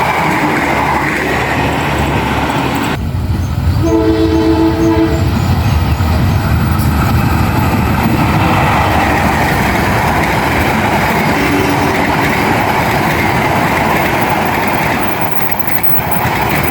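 A train passing close by, its cars and wheels rumbling on the rails, with the horn sounding once about four seconds in for just over a second and a fainter, shorter horn note later on.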